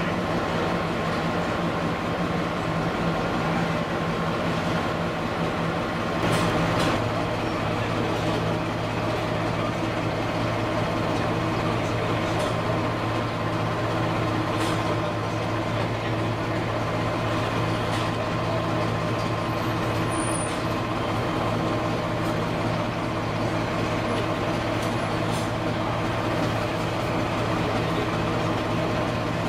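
Diesel locomotive engine idling with a steady, even drone; its low hum shifts slightly about six seconds in.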